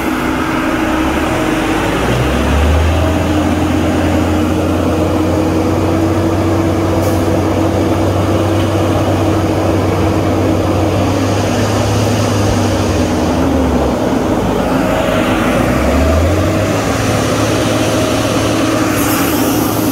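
Log truck's diesel engine running under load as the rig works in the mud. The engine note comes up about two seconds in, eases off near fourteen seconds and builds again around sixteen seconds.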